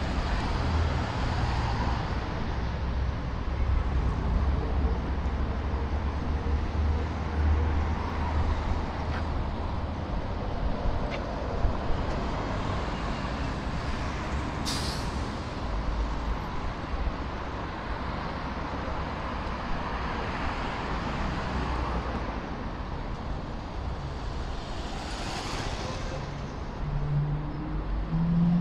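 Road traffic on a busy city avenue: vehicle engines running with a low rumble, strongest through the first half. A short, sharp air-brake hiss comes about halfway through, and a longer hiss follows near the end.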